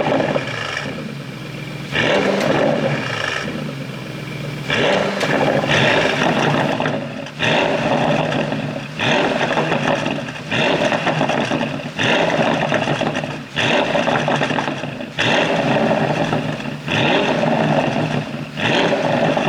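Porsche Panamera GTS twin-turbo V8 revved in short repeated blips with its exhaust flaps held open, about a dozen rises and falls, roughly one every second and a half. The exhaust is running a pop-and-crackle tune.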